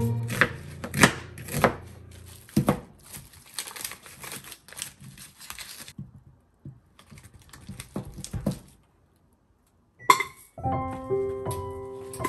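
Kitchen knife peeling and cutting an onion on a plastic cutting board: irregular knife strikes and crinkling of dry onion skin, which stop for a moment partway through. Near the end comes a single sharp knock, then background music.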